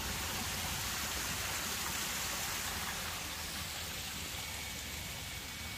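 Steady, even hiss of outdoor background noise with a low rumble underneath.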